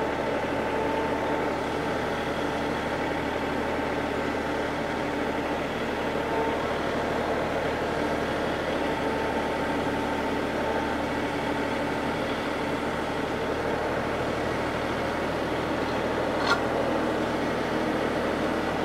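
John Deere compact tractor's diesel engine running steadily as the tractor drives slowly with a landscape rake on the three-point hitch. A single light click sounds near the end.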